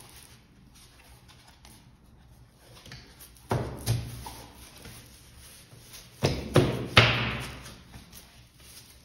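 Laminate floor planks knocking as they are fitted and pressed down into their click-lock joints by hand: two sharp knocks about three and a half seconds in, then three more a few seconds later, the last the loudest.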